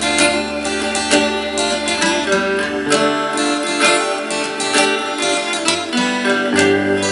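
Steel-string acoustic guitar played along with a recorded band backing track, in a passage without vocals. Held bass notes underneath change a few times.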